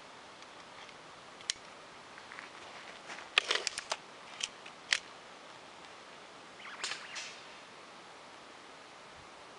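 BSA Spitfire break-barrel air rifle being worked open and shut before a shot: one sharp click, then a quick cluster of metallic clicks a few seconds in and a louder click about five seconds in. A short softer rattle of handling follows near seven seconds as the rifle is brought up.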